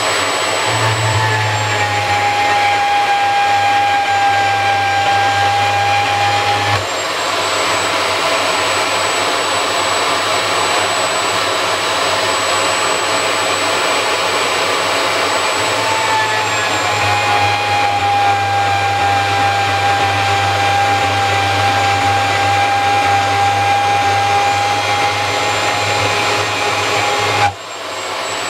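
Makita portable band saw running and cutting out a steel knife blank, a steady loud machine noise. A steady whine comes in twice, about a second in and again past the middle, and stops with a brief dip in the noise near the end.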